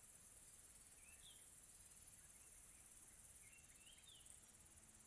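Faint tropical afternoon ambience: a steady, high-pitched chorus of crickets, with a few short chirps about a second in and again between about two and a half and four seconds.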